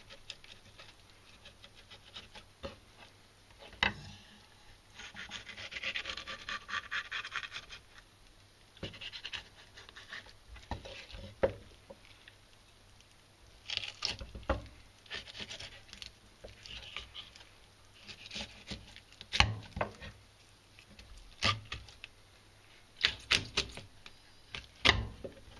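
Kitchen knife filleting a horse mackerel into three pieces on a cutting board: scraping and rubbing as the blade is drawn along the backbone, with a long rasping stretch about five seconds in and several sharp knocks later on.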